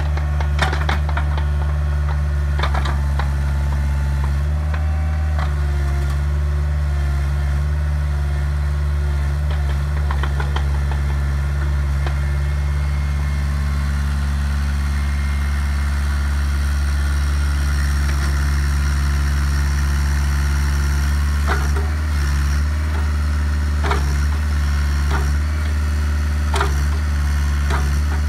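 Bobcat 430 mini excavator's diesel engine running steadily while the boom and bucket work a gravel pile. A few short, sharp clanks come every few seconds.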